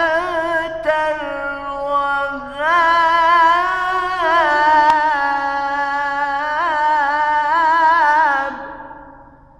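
Quran recitation in melodic tajweed style: one voice chanting long, ornamented held notes. There is a short breath about two and a half seconds in, then a long final phrase that fades away near the end.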